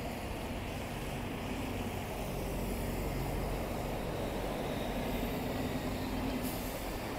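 Road traffic passing at a busy city junction: steady engine noise from cars and buses.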